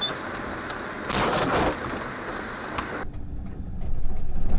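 Steady rushing road noise inside a moving vehicle, with a harsher, louder rush lasting about half a second about a second in. About three seconds in the sound changes abruptly, and a louder low rumble builds near the end.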